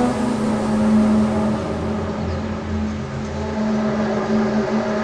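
A long, steady horn-like drone with a stack of overtones, holding one pitch over a low rumble. This is the mysterious trumpet-like sound reported coming from the sky.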